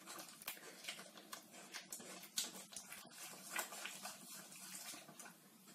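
Wire whisk stirring egg yolks into a thick batter in a stainless steel bowl: quiet, irregular clicks and scrapes of the wires against the metal, several a second.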